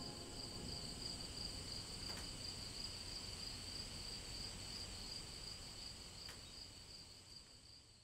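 Faint steady high-pitched insect drone with low background noise, fading out over the last couple of seconds.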